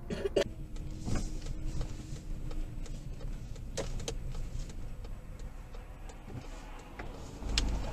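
Car cabin noise while driving: a steady low road and engine rumble, with a faint steady hum for the first few seconds and a few scattered clicks.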